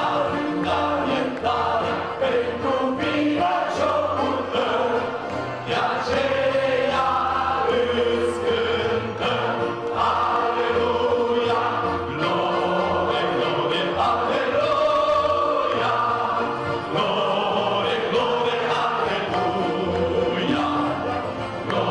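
A lead singer on a microphone and a standing congregation singing a worship hymn together, accompanied by an accordion.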